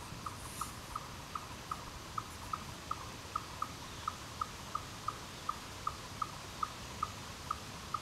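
An animal repeating a short chip call at a steady pitch, very regularly, about three times a second, over a faint steady hiss of outdoor ambience.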